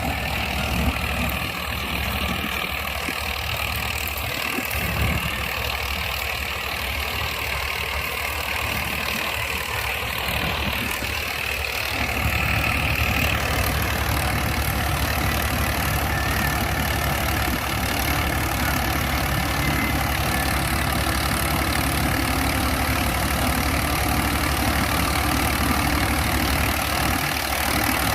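Swaraj 963 tractor's diesel engine running steadily under load, driving a Gill tractor-mounted double-rotor combine harvester. The engine gets a little louder and steadier about twelve seconds in.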